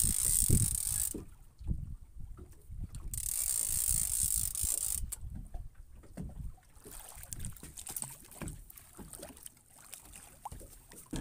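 Fishing reel whirring in bursts as a hooked tope is played on the line: once at the start, again for about two seconds from about three seconds in, and faintly later on. Low rumbling runs underneath.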